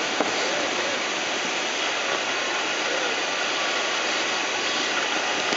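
Steady rush of air over a glider's canopy, heard from inside the cockpit during fast ridge-soaring flight.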